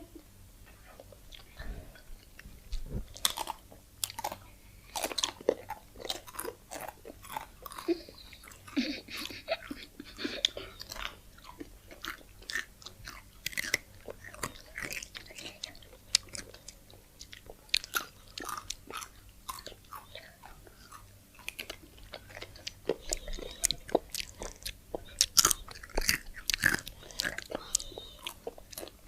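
Close-up chewing and biting of crunchy food: a steady run of short crunches and wet mouth clicks.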